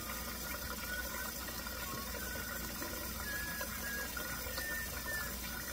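Water running steadily from a kitchen tap into a large stockpot of beef bones, filling it.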